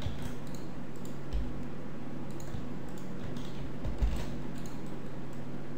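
Scattered clicks of a computer keyboard and mouse being worked, with a heavier knock about four seconds in, over a steady low hum.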